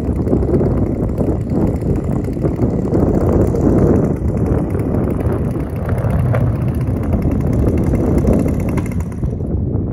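Strong gusty wind buffeting the microphone, a loud, uneven rumble.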